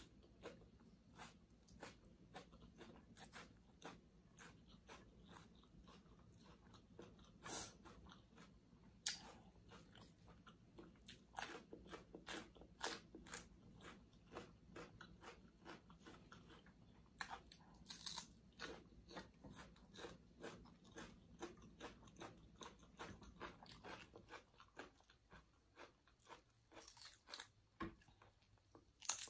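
Close-up mouth sounds of chewing and crunching Thai glass-noodle salad with raw vegetables, fresh okra among them: soft, irregular crisp clicks and smacks throughout, with one sharper, louder sound right at the end.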